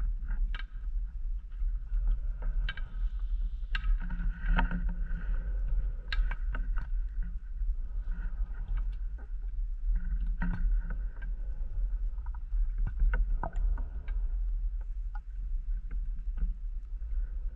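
Underwater sound picked up by a diver's camera: a constant low rumble with scattered sharp clicks and crackles, and a swell of scuba breathing and bubble noise about every six seconds.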